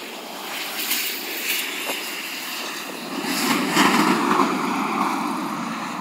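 Jet airliner's engines at high power during a touch-and-go takeoff run, a dense engine noise that swells and is loudest about four seconds in.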